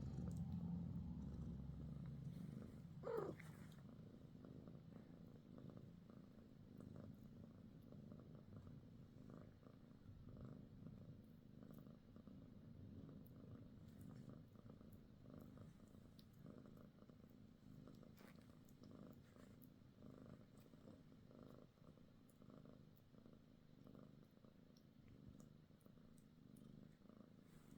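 Mother cat purring steadily and faintly, a contented purr. About three seconds in, a short squeak sweeps up and down in pitch.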